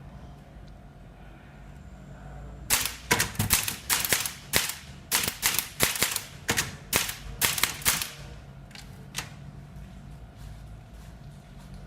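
Typewriter keys striking one at a time in an uneven rhythm, about two to three loud, sharp strokes a second for around five seconds, followed by a couple of fainter strokes.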